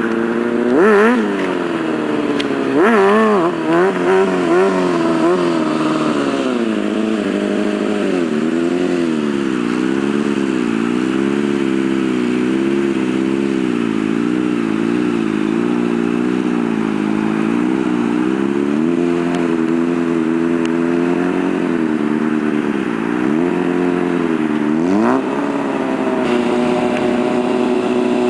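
Honda CBR600F4i inline-four sport-bike engine revved in sharp blips about a second in and again around three to five seconds. Its pitch then rises and falls evenly for about ten seconds as the throttle is feathered to hold the bike up on its rear wheel in a wheelie. It settles to steadier running, with another quick rev near the end.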